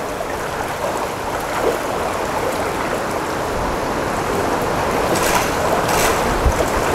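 A crowd of steelhead trout thrashing and splashing at the surface of a hatchery raceway in a feeding frenzy: a continuous churning splash, with a couple of sharper splashes near the end.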